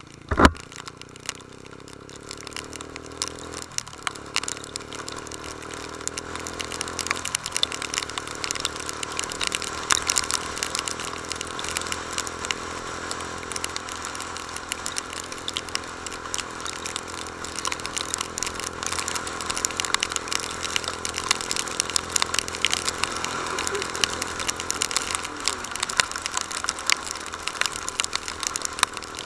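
Honda CB150 Invicta's single-cylinder engine running under way, its pitch dropping and climbing again a few times as it shifts gears, over a dense crackle of clicks. A sharp knock about half a second in is the loudest thing heard.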